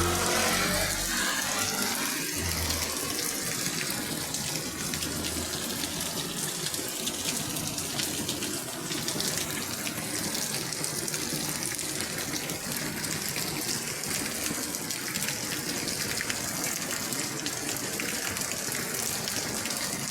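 Rain falling steadily, an even hiss, with some low rumbling in the first few seconds.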